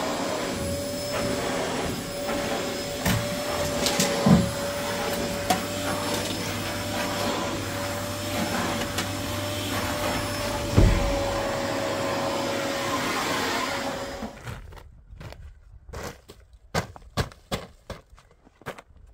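Canister vacuum cleaner running steadily with a constant hum, with a couple of knocks, the loudest a thud about eleven seconds in. It stops about fourteen seconds in, giving way to a series of sharp crunching strokes of a broom brushing snow.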